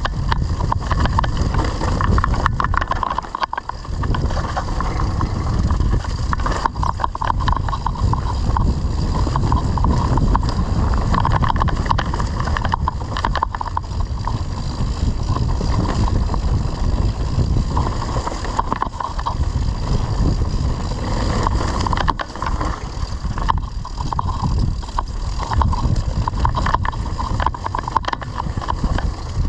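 Mountain bike riding over rough off-road ground: wind buffeting the microphone over the rumble and rattle of the tyres and bike, with a short lull about three to four seconds in.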